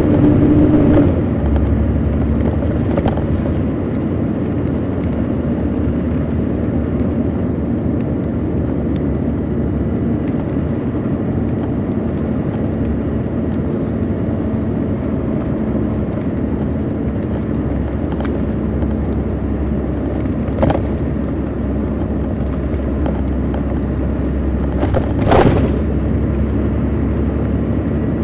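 Cabin sound of a 2002 MCI D4000 coach in motion: its Detroit Diesel Series 60 engine gives a steady drone. A rising whine cuts off about a second in. A sharp click sounds about twenty seconds in, and a brief louder rattle comes near the end.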